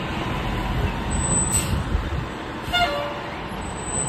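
Fire engine's diesel engine running steadily as the truck pulls away, with one short horn toot about three seconds in.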